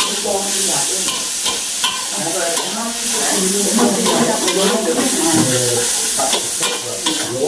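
Food sizzling in a hot pan while it is stirred and tossed with a spatula, with scraping and clicks of the utensil against the pan.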